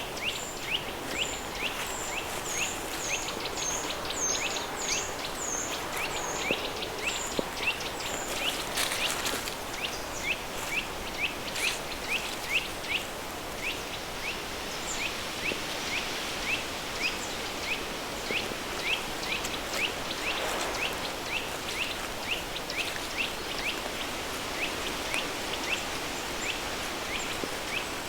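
River stream flowing steadily, mixed with a pink-noise hiss, while a bird repeats a short chirp about twice a second throughout. A second, higher-pitched bird calls in a quick series during the first eight seconds or so.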